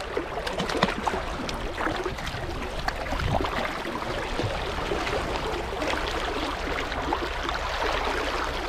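Shallow river water running around a wader's legs, with small splashes as a hooked brown trout thrashes at the surface and is taken in hand.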